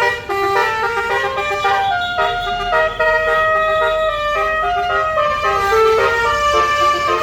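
Bus 'basuri' telolet horn playing a tune: a continuous run of quick horn notes stepping up and down in pitch.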